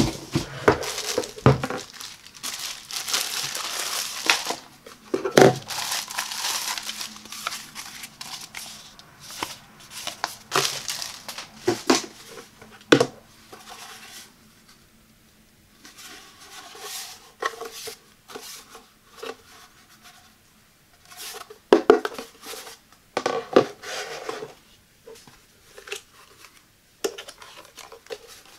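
Clear plastic film crinkling and tearing as it is pulled off a leaf blower's tube, dense for the first several seconds. Then come scattered knocks and clicks of the hard plastic tube and blower housing being handled and fitted together.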